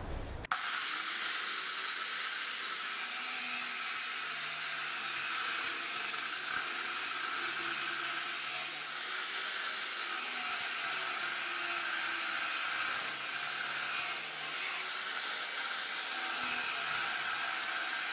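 Angle grinder with a cut-off disc cutting short pieces of steel, starting about half a second in. It runs with a steady whine, and the cutting noise eases briefly twice, about halfway through and near the end.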